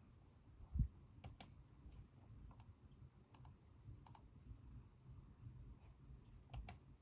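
Faint clicking of a computer mouse as a list is scrolled and items are picked, with two quick pairs of clicks, one near the start and one near the end. A soft low thump comes just under a second in.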